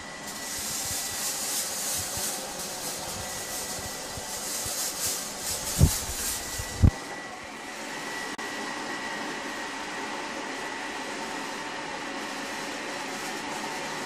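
Kam KHM800 haze machine running: a loud hiss as it puts out haze, which stops about six and a half seconds in, over its steady fan noise and a thin steady high tone that carry on to the end. Two dull knocks come near the middle, about a second apart.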